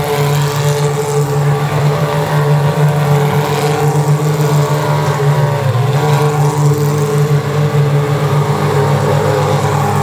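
2019 FIA Formula 3 cars, Dallara single-seaters with naturally aspirated 3.4-litre Mecachrome V6 engines, running at low revs as they roll slowly past one after another. The engine note is steady and drops slightly about six seconds in.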